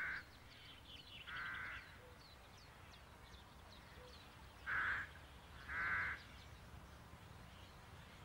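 A crow cawing four times: once at the start, again about a second and a half in, then twice more close together around five and six seconds in. Faint chirps of small birds sound in the background.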